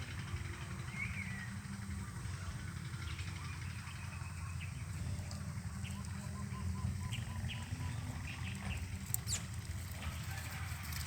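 Outdoor farmyard ambience: scattered short bird chirps over a steady low rumble, with a few sharp clicks near the end.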